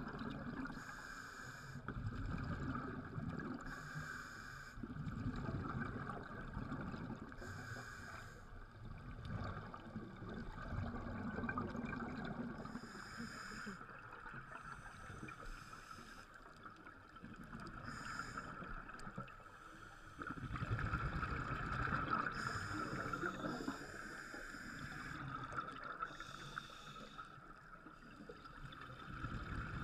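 Underwater recording of a scuba diver's regulator breathing: bursts of bubbling exhaust every few seconds over a steady underwater hum.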